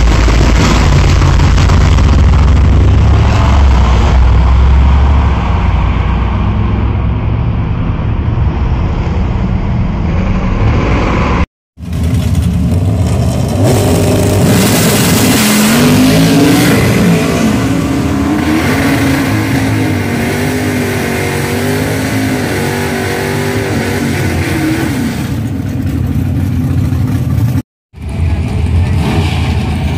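Drag race car engines at full throttle, in separate clips cut together. First a loud, low engine sound that holds steady for about eleven seconds. After a sudden break, an engine whose pitch rises and wavers as the car accelerates. A second abrupt cut comes near the end.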